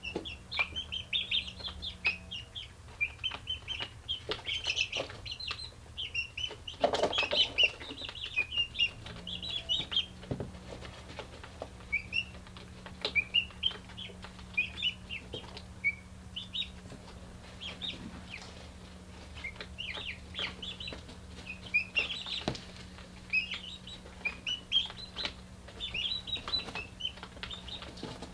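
Young chickens cheeping in a brooder: many short, high chirps all through, with a brief, louder rustling burst about seven seconds in. A steady low hum runs underneath.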